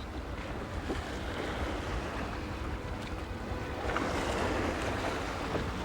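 Steady, low rushing water noise, heavy in the low end, as heard underwater around divers.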